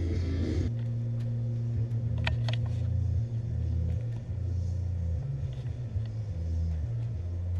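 Low, uneven rumble on the camera microphone, with a few short sharp clicks about two and a half seconds in.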